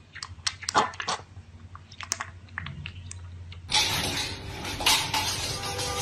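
A piglet slurping milk from a steel bowl: an irregular run of wet clicks and smacks. About two-thirds of the way through this cuts to a louder, rough, noisy stretch with knocks.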